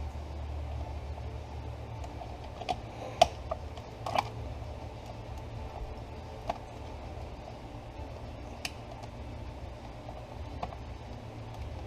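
Plastic wiring connectors being handled and pushed together, giving scattered light clicks and taps, loudest around three to four seconds in, over a steady low hum.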